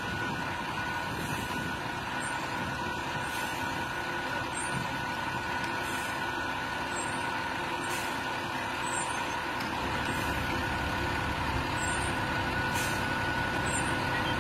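Diesel engines of heavy military trucks running as their cables pull an overturned armoured personnel carrier back onto its tracks, with a steady high-pitched whine over them. The low engine sound grows louder about ten seconds in.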